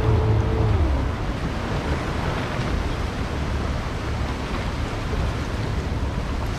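A moving boat's engine hum drops and fades about a second in as it eases off, leaving a steady rush of wind and water along the hull.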